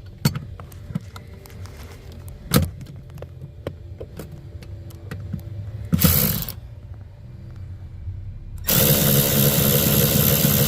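A power tool driving in a mounting bolt: a short burst about six seconds in, then a steady run of about three seconds near the end, with clicks and clinks of handling before it.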